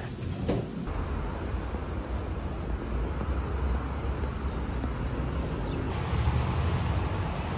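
Steady city street noise, mostly a low traffic rumble.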